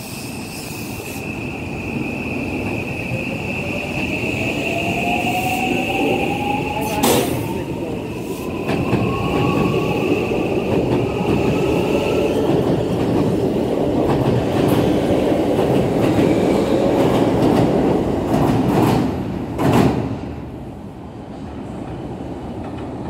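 A JR West 323 series eight-car electric train pulls out and accelerates. Its motor whine rises steadily in pitch, along with a steady high tone that stops about twelve seconds in. The rolling rumble builds as the cars pass, with sharp clicks of wheels over rail joints, then fades after about twenty seconds as the last car leaves.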